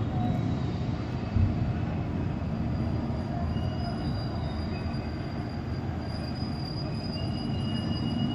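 Steady low rumble with faint, thin, high squealing tones that come and go, and one short thump about a second and a half in.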